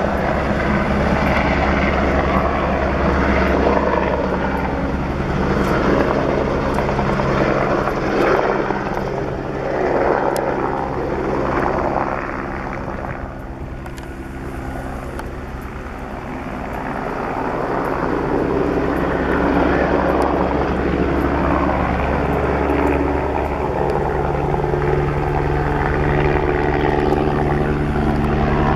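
Eurocopter AS 550 C2 Fennec helicopter flying with an underslung car body, its rotor and turbine running steadily. The sound fades for a few seconds around the middle, then swells again.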